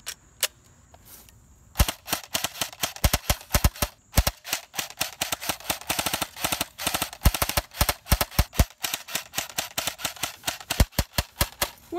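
Airsoft rifle firing: a couple of single clicks, then from about two seconds in long rapid full-auto bursts of sharp snapping shots with short pauses between them.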